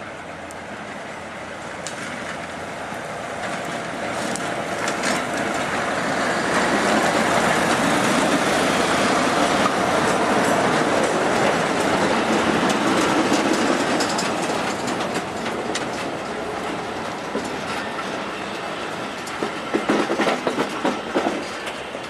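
SNCF diesel locomotive and the wagons of an inspection train rolling slowly past, the engine and wheel noise growing louder over the first several seconds and then holding steady. Near the end, a run of sharp clacks as wheels pass over rail joints.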